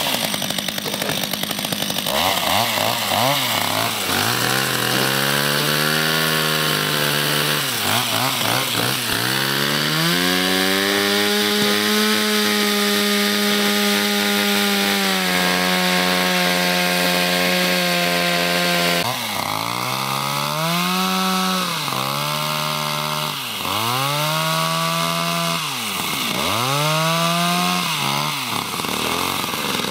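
Two-stroke chainsaw sawing into thick ice, its engine revving up and down as the bar works through the cut. Through the middle it is held at a steady high speed for several seconds, then it rises and drops again every second or two, with the hiss of the chain biting the ice.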